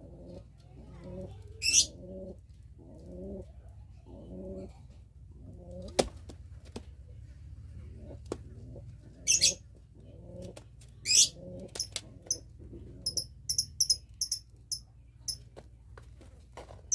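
Domestic pigeon cooing in a steady run of low, repeated phrases, typical of a male courting during mating. Three loud, brief wing flaps break in, and a quick string of short high chirps comes near the end.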